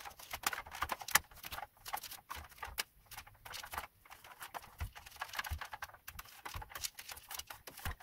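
A paper tissue rubbing and scrubbing across the bare keyboard of a Commodore 64C, keycaps removed, with irregular light clicks and taps as it catches on the plastic key stems.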